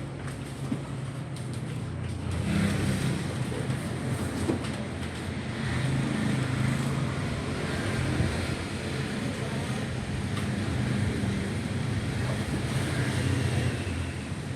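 Motor vehicle engine running amid street traffic noise, a low hum that swells and eases.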